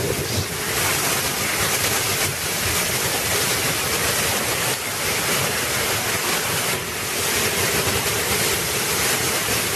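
Torrential rain pouring down in a dense, steady rush, swelling in gusts every second or two, with wind buffeting the microphone.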